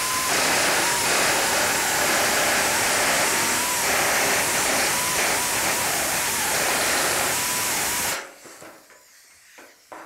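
Air-powered pneumatic nibbler running loud and steady, its air hiss mixed with the rapid chatter of the punch, as it cuts its way through the sheet-steel fender. It stops suddenly about eight seconds in.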